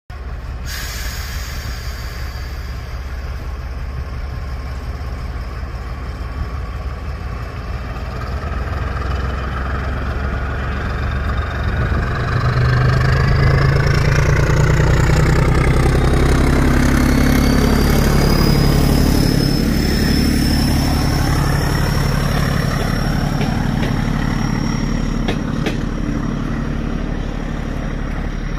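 A heritage diesel train passes close by with its diesel engines running. The sound builds over the first dozen seconds and is loudest around the middle as it goes past, then eases slightly. A thin high whine rises in pitch as it approaches.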